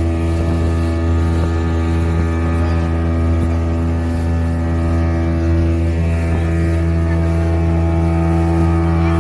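Speedboat engine running steadily at cruising speed: an even drone that holds one pitch throughout.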